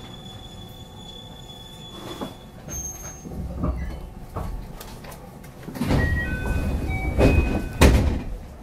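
JR West 221-series electric train standing at a station platform just after braking to a stop; its passenger doors slide open with a rush of noise and a heavy thud, and a few short beeps, from about six seconds in.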